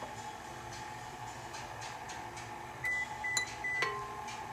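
Electronic beeping from a kitchen appliance's control panel: three short high beeps about a third of a second apart, then a longer, lower tone near the end, over a steady background hum.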